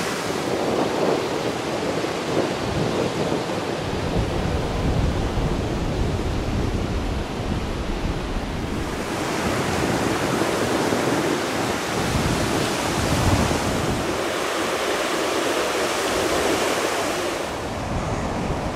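Baltic Sea surf washing onto a wide sandy beach, with wind gusting across the microphone. The hiss of the water grows brighter about halfway through and drops back just before the end.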